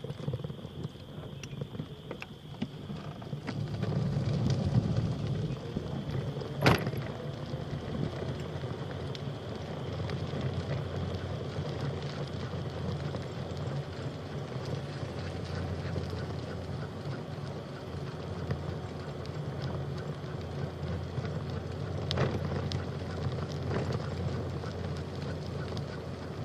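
Steady low rumble of a bicycle ride: tyre and wind noise, with a single sharp click about 7 seconds in.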